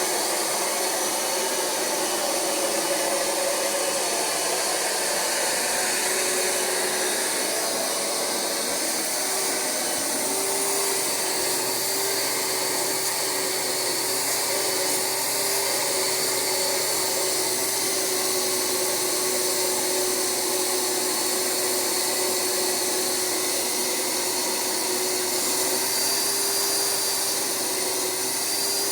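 Rug Doctor carpet cleaner's vacuum motor running steadily, pulling suction through the upholstery hand tool, with a faint whine held over the steady rush of air.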